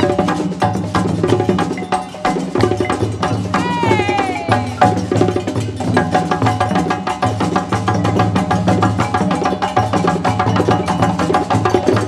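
West African drum ensemble playing a fast, driving rhythm on hand-struck djembes and stick-struck dunun drums. About four seconds in, a voice calls out once with a falling cry.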